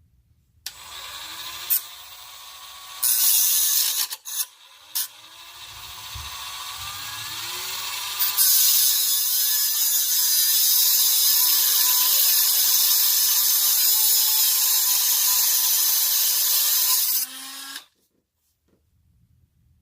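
Dremel rotary tool with a metal cutoff wheel cutting through a seized exhaust Y-pipe flange bolt. The motor spins up about a second in, its whine rising and falling as the wheel bites in short loud touches. From about eight seconds it holds a loud, steady high-pitched cut until it stops near the end.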